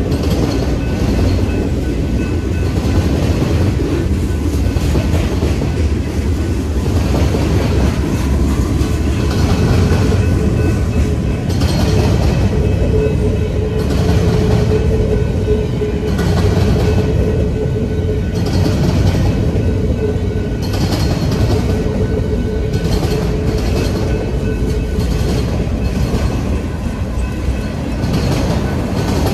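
Freight train cars rolling past at close range: a steady rumble of steel wheels on rail, swelling with a clack every couple of seconds as the trucks pass, and a steady whine for a while in the middle.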